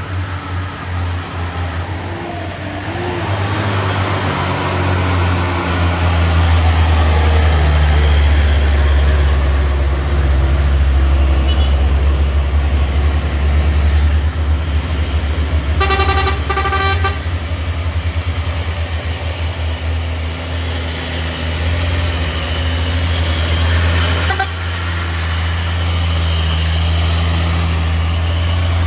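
Heavy diesel truck engines running with a deep, steady drone that grows louder a few seconds in. A vehicle horn gives two short toots about sixteen seconds in.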